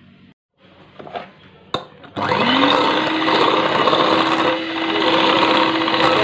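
Electric hand mixer starting up about two seconds in, its motor pitch rising quickly and then holding steady as the beaters whip instant coffee batter into a thick foam. A couple of light clicks come just before it starts.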